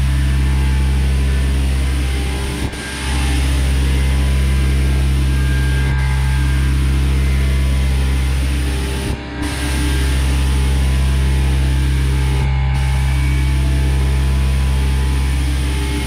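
HVLP spray gun spraying pre-catalysed lacquer: a steady rush and hiss of atomising air over a low, even hum. It breaks off briefly three times, about 3, 9 and 12 seconds in.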